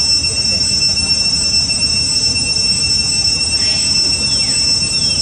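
Steady, shrill insect drone with high unwavering tones and a low rumble underneath. A few faint, short falling chirps come near the end.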